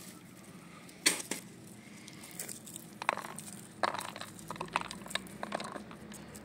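Walnut kernels being picked up and broken apart by hand, the pieces dropping onto a steel plate: irregular dry crackles and small clicks.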